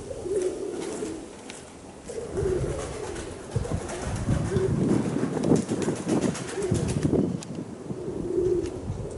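Domestic pigeons cooing, a low call repeated on and off, over strong gusty wind buffeting the microphone.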